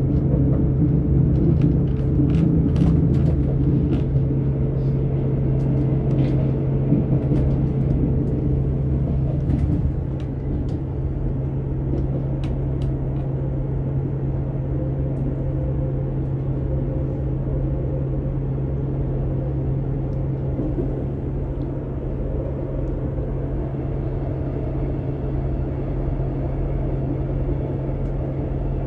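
Class 158 diesel multiple unit under way, heard from inside the passenger saloon: a steady low drone from the underfloor diesel engine over the rumble of the wheels on the track. Scattered sharp clicks come through the first dozen seconds, and the noise drops a little about ten seconds in.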